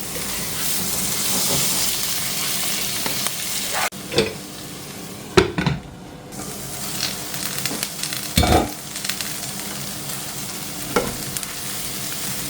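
Onion, garlic, ginger and tomato sizzling as they fry in a pan, with a few scraping strokes of a spoon stirring them. The sizzle fades for a couple of seconds near the middle, then returns.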